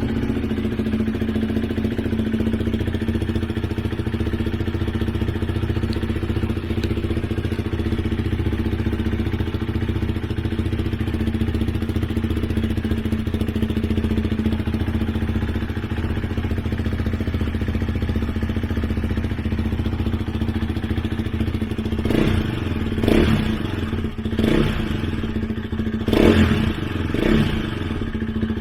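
KTM Duke 390's single-cylinder engine idling steadily through an aftermarket Akrapovic exhaust with its dB killer fitted, then revved in several short throttle blips near the end.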